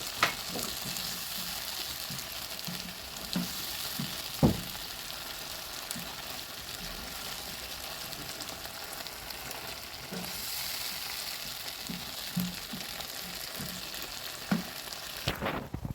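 Liver cooking in a pan with tomatoes and milk, sizzling steadily while it is stirred, with a few sharp knocks of the spoon against the pan.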